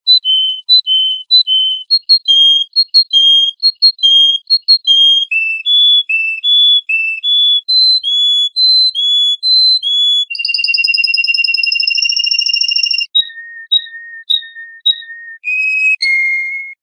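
A songbird singing a whistled song: a quick run of clear, short, repeated notes, then a sustained trill about ten seconds in, then more short notes.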